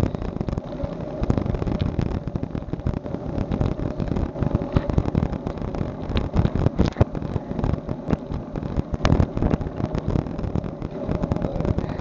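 Irregular low rumble and buffeting on a cheap action camera's built-in microphone, broken by frequent knocks and bumps, with a faint steady hum underneath.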